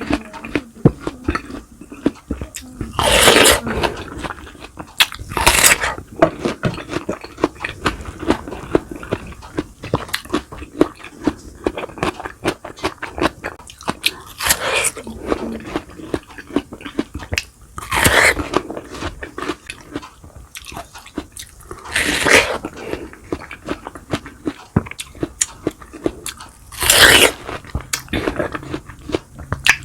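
Close-up eating sounds of a person chewing and biting into a meal of fried boneless milkfish and garlic rice: many small wet clicks and smacks, with several louder crunchy bites spread through.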